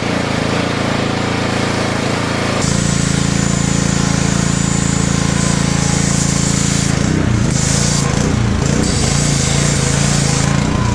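Pressure washer running with a steady hum, driving a foam cannon that hisses as it sprays degreaser foam onto a car's underside. The spray gets louder about two and a half seconds in and breaks off briefly a few times in the second half.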